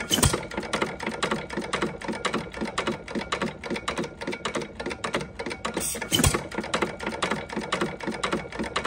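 A 1 1/2 HP Stover KE hit-and-miss engine running, with a fast, steady mechanical clicking as it coasts between power strokes. It fires with a deep bang twice, about a quarter second in and again about six seconds later, as the governor lets it fire only when its speed drops.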